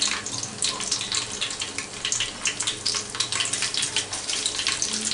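Cumin seeds sizzling in hot cooking oil in a pressure cooker, a steady fizz crowded with tiny crackling pops as the seeds fry.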